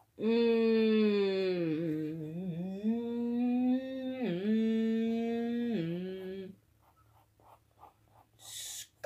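A person humming a short wordless tune, a few held notes that slide down and step up and down, stopping about two thirds of the way in. Faint pencil strokes on paper follow.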